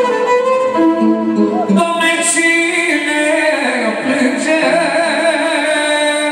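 A man singing through a microphone over a violin accompaniment: steady held notes at first, then from about two seconds in a wavering line with heavy vibrato.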